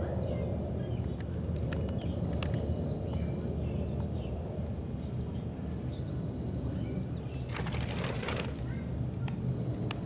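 Young chickens peeping in short chirps over a steady low background rumble, with a brief burst of rustling noise about three-quarters of the way through.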